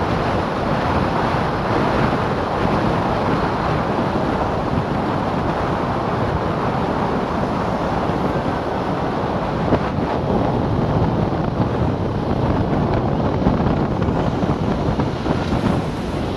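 Wind rushing over a helmet-mounted camera's microphone while riding an Aprilia RS4 125 motorcycle at speed, with the bike's running and road noise mixed in underneath.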